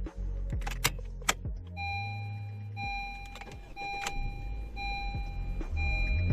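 A few sharp clicks, then a car's cabin warning chime beeping about once a second over a low steady hum.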